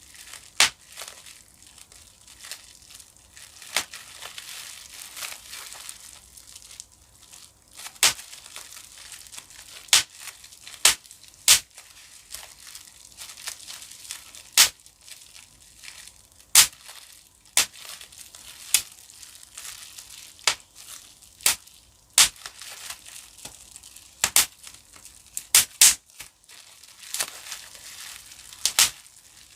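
Bubble wrap being popped by hand: sharp single pops at irregular intervals, roughly one every second or two, with the plastic sheet crinkling between them.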